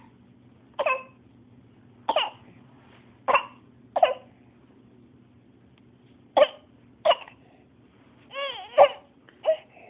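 A baby fake-coughing: about seven short, separate forced coughs a second or so apart, with a brief wavering vocal sound near the end.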